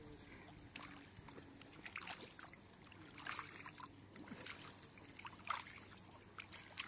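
Bare feet wading slowly through ankle-deep water, making quiet irregular splashes and trickles.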